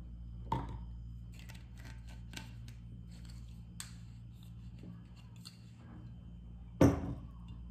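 Clicks and taps of a spoon and plastic container while cake batter is mixed, with a sharp knock about half a second in and a louder knock near the end, over a steady low hum.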